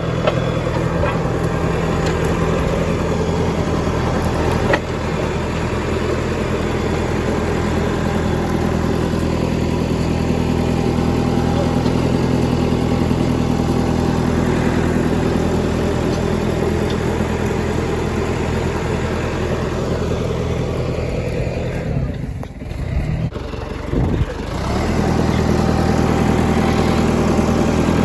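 John Deere 555 crawler loader's diesel engine running steadily while the machine is worked, with a short dip in the sound about three-quarters of the way through.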